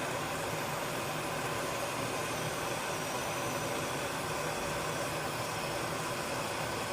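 Gas releasing in a kitchen with a steady, even hiss that holds unchanged.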